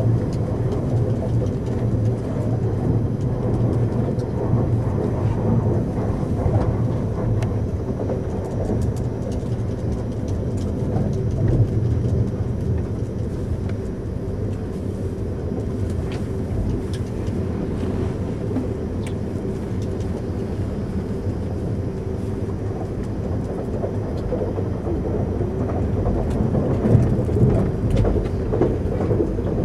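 Eurostar high-speed train running on the track, heard from inside the passenger coach as a steady low rumble, with faint ticks now and then. It gets a little louder near the end.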